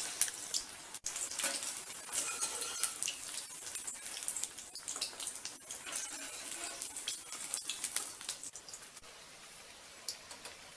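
Vegetable kebabs deep-frying in hot oil on a low flame: steady sizzling with dense crackling, which turns quieter about eight and a half seconds in.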